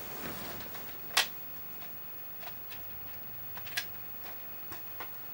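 A few sharp clicks and light knocks from handling electronic equipment, with one distinct click about a second in and a short cluster of clicks near four seconds.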